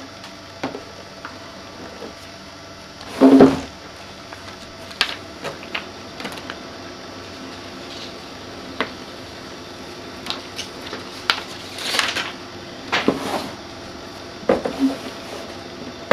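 Scattered taps, rubs and short scrapes of vinyl graphic being worked onto a plastic snowmobile hood with a soap-and-water solution. The loudest is a brief rustling burst about three seconds in, with a few more short scrapes near the end.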